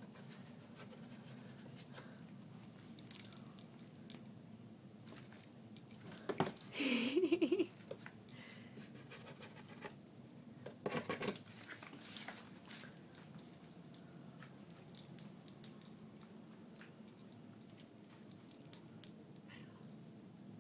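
A cat playing inside a cardboard box: light scratching, rustling and ticking of claws and paws on the cardboard, with a louder scuffle about eleven seconds in. About seven seconds in, a short wavering cat call.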